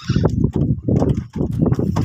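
Spinning reel being cranked to reel in line on a bent light rod, a rhythmic low knocking of about five strokes a second.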